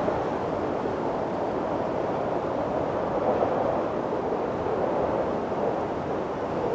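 Steady wind noise, a broad rushing hiss that swells and eases gently.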